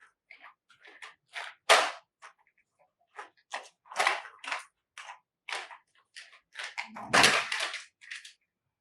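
Plastic toy vehicles being handled: a run of irregular clacks and knocks, the loudest about two seconds in and about seven seconds in, as a toy truck is taken off a toy car-carrier.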